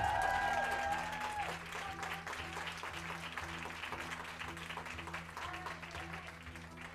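A crowd applauding over music with a steady beat. The applause is loudest in the first second and thins out toward the end.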